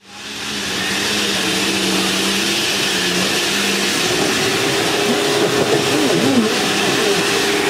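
A 4x4's engine running with a steady hum and a broad rushing noise; the pitch wavers up and down briefly about two-thirds of the way through.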